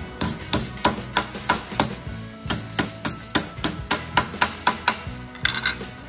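Steel body hammer striking a small strip of sheet steel in quick, even blows, about three to four a second, stopping near the end.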